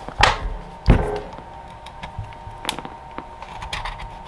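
Sharp clicks and knocks of a hard plastic battery case as a thin pry tool is worked into its lid seam to open it. The loudest knock comes about a second in, with a few lighter clicks after it.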